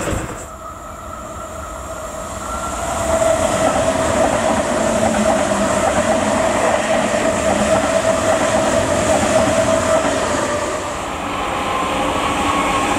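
Deutsche Bahn ICE train passing through the station at speed: the rumble of its running builds about three seconds in and holds steady with a whine, then fades. Near the end the next train, an electric locomotive hauling freight wagons, comes up loud.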